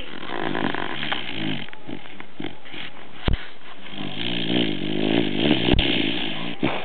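Sleeping dog snoring: two long snores, the second, about four seconds in, louder than the first. A sharp click falls between them, a little past three seconds.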